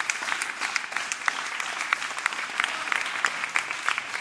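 A small crowd clapping and applauding, many sharp, irregular hand claps overlapping throughout.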